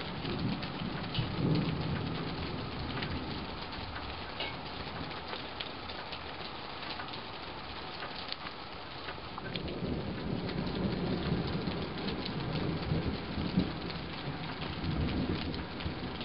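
Steady rain falling, with many small drop taps, and low rolling thunder rumbling at the start and again through most of the second half.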